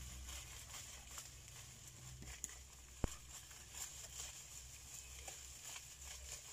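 Faint taps and leaf rustle from a long bamboo pole being worked up into mango tree foliage toward a weaver-ant nest, with two sharper clicks about two and a half and three seconds in over a steady low hum.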